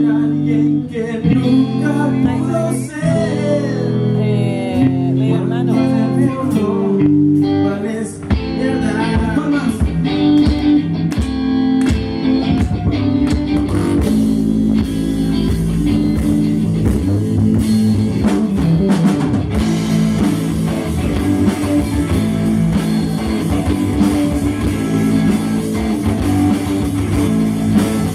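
Rock song: guitar with singing at first, then the full band with drums comes in about eight seconds in and plays on steadily.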